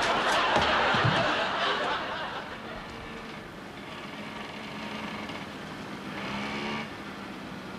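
Audience laughing for about the first two seconds, then fading. After it comes the steady running of a small motorcycle engine, faint at first and a little louder near the end.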